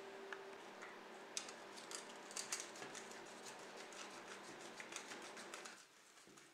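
Light clicks and scratchy scrapes of a screwdriver tip and gloved fingers on the grimy metal baseplate of a diecast model car, several a second, dying away near the end.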